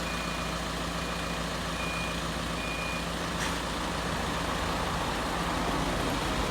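A heavy vehicle's reversing alarm beeps four times, about once a second, and stops about three seconds in. Under it a vehicle engine runs steadily, then grows louder in the second half.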